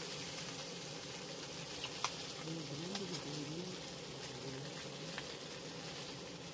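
Dried yellow croaker sizzling steadily on a grill, a constant frying hiss with a few light clicks. A faint low voice murmurs in the middle.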